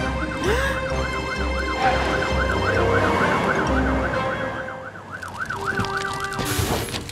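Fire truck siren, a fast up-and-down wail repeating about three or four times a second, with a low engine rumble from the racing trucks beneath it for the first four seconds; the siren cuts off about six and a half seconds in.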